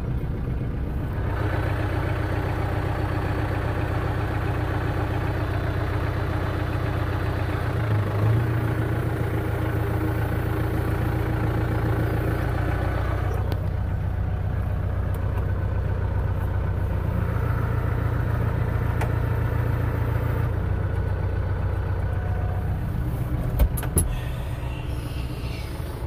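Engine running steadily just after a cold start, with a couple of sharp clicks near the end.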